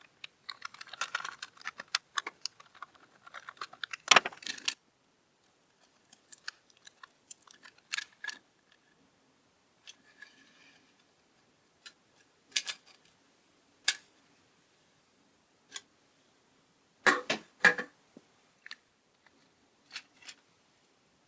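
Small plastic and metal parts of a toy RC car clicking, rattling and knocking as it is taken apart by hand. It opens with a busy stretch of rattling and a loud click, continues with sparse single clicks, and ends with a loud cluster of knocks near the end.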